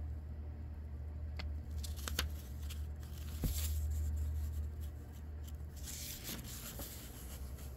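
Pages of an old paper book being handled and turned: dry papery rustling with a few light taps, loudest in bursts around the middle and again about six seconds in, over a steady low hum.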